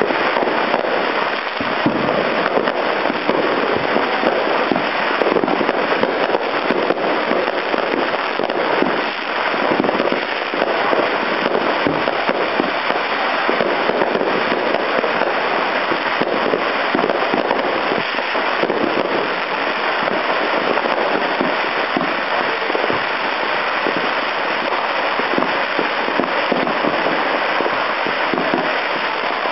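Many firecrackers going off at once: a dense, unbroken crackle of small bangs.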